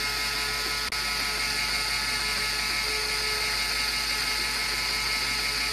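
Lego Technic gearbox driven by a Lego electric motor, running steadily in a continuous whir of motor and plastic gears, with the levers set to a reverse ratio of minus 1. A faint click comes about a second in.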